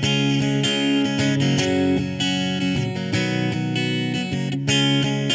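Stratocaster electric guitar strummed through a Roland Micro Cube amp set to its acoustic-guitar model with a little reverb, so it sounds like an acoustic guitar: a run of chords, with a last chord struck near the end and left to ring.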